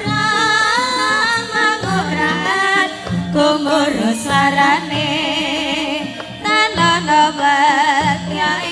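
A woman singing a Javanese jaranan song with a wavering, ornamented melody over a live gamelan ensemble, with a steady pattern of kendang drum strokes beneath.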